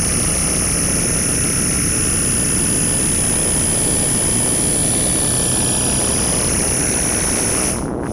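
Dense, steady electronic noise drone from a live sound-art performance, with a heavy low rumble and a thin steady high whistle on top. Near the end the upper part cuts out and it drops a little in level.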